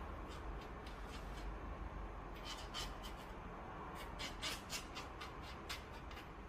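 Faint, irregular scraping and light clicking of a wooden chopstick spreading grease onto a 3D printer's threaded Z-axis lead screw, in small clusters about two and a half seconds in and again from about four to six seconds.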